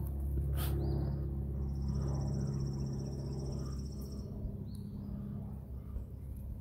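Steady low hum, with birds chirping: a few short rising chirps and a high trill lasting about two and a half seconds.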